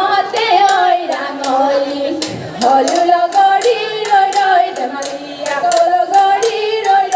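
Women singing a Jeng Bihu song in Assamese, the melody wavering and ornamented, over a steady beat of sharp hand claps.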